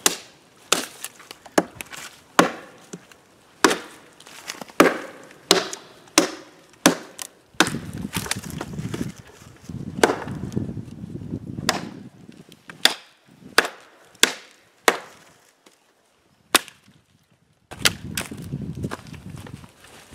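A bushcraft knife chopping into small dead branches: sharp, separate wooden chops roughly once a second, many in a row, with rustling of brush and leaves between them and after the last chop near the end.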